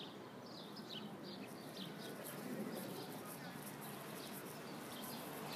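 Small birds chirping faintly in short, quick notes, scattered irregularly, over a low steady background hum.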